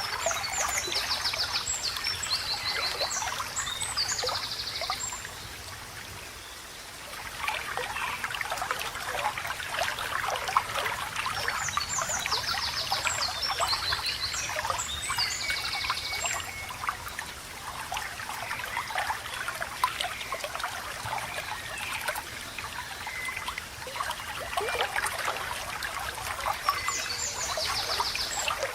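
Small stream babbling and trickling steadily, with a songbird singing groups of quick, high trilled phrases three times: at the start, about halfway through, and again near the end. The water dips briefly quieter a few seconds in.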